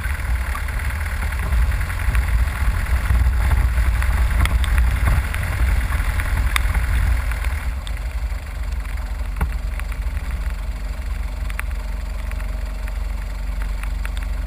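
A vehicle engine running steadily at low revs with a deep rumble; a hissing noise over it drops away about eight seconds in.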